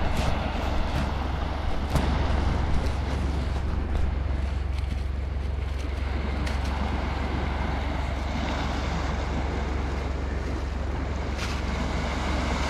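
Wind buffeting the microphone over the steady wash of surf on a rocky shore, with a few light clicks near the start, about two seconds in and near the end.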